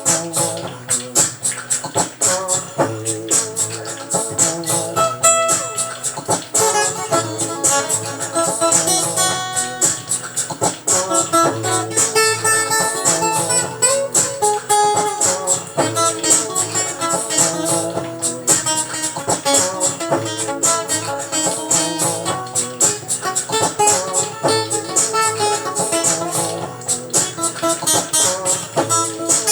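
Music: plucked guitar over a steady, fast beat.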